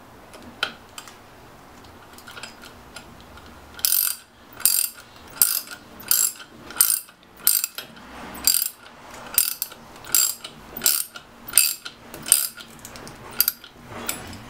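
Socket ratchet wrench clicking as it is swung back and forth to tighten a pump's impeller cap. A few scattered clicks come first, then from about four seconds in a steady run of about a dozen ratcheting bursts, roughly three every two seconds.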